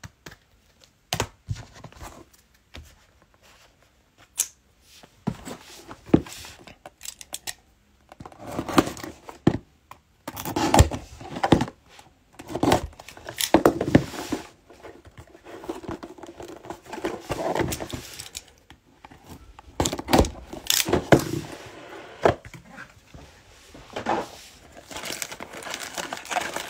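Cardboard trading-card box being cut and torn open, then foil card packs crinkling as they are handled and taken out, with scattered clicks and taps.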